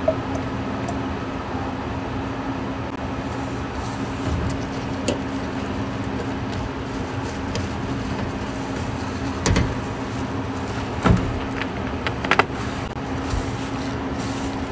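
Steady electrical hum of restaurant kitchen equipment with a constant low tone, broken by a few sharp knocks of plastic squeeze bottles handled and set down on a steel prep counter, about ten to twelve seconds in.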